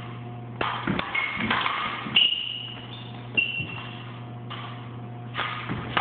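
Steel fencing blades clashing and scraping in three quick flurries (about a second in, midway and near the end), each strike leaving a high ringing, with feet stamping on a wooden floor among them. A steady low hum runs underneath.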